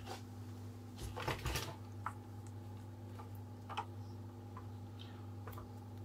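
Scattered light clicks and knocks of tools being handled against small metal engine parts, with a small cluster of them about a second in, over a steady low hum.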